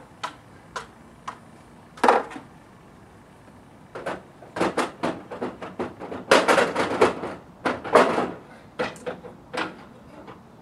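Crowbar prying at a metal gutter spike: a few sharp metal knocks at first, then a dense run of knocking and scraping in the second half as the bar works the spike.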